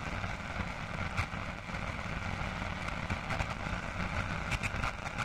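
Steady outdoor night ambience: an even rushing noise with scattered faint crackles.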